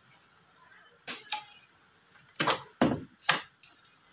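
Sharp clicks and knocks of small metal parts and tools being handled while rewiring a juicer's switch, about half a dozen in all, starting about a second in and loudest past the middle.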